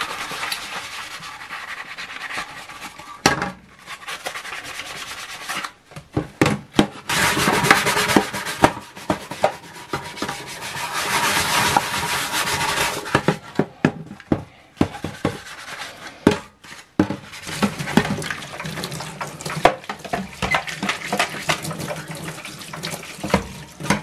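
A metal PC case panel being scrubbed with a brush and sponge in soapy water in a stainless steel sink: rasping scrub strokes and water sloshing, with repeated knocks and clatters of the panel against the sink.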